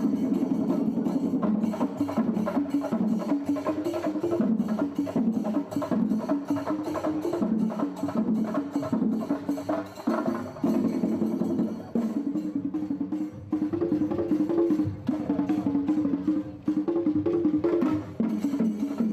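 Percussion-driven music: fast, dense drum strokes under a melody line that runs throughout, with a few brief breaks.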